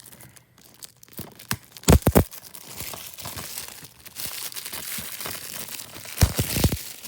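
Plastic wrapping being torn and crinkled off a DVD case, with a few sharp knocks of the plastic case about two seconds in and again near the end.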